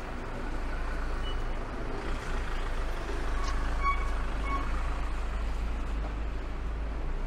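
City street ambience: a steady wash of traffic noise, with a few brief high tones about three and a half to four and a half seconds in.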